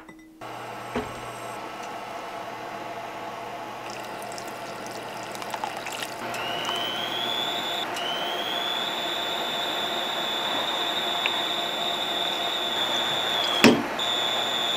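A pot of bulgogi broth heating, with a steady noisy bubbling hiss that slowly grows louder. A thin high whine joins about six seconds in and rises slightly before holding. A single sharp clack comes near the end.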